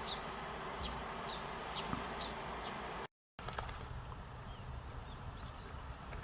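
Eurasian tree sparrows chirping: a run of short, sharp chirps, then a brief dropout about halfway and a few fainter chirps after it, over a steady low background hum.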